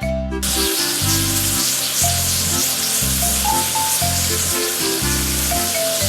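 A steady hiss of spraying water, used to wash down a machine, over upbeat background music with a bouncing bass line. The spray starts about half a second in.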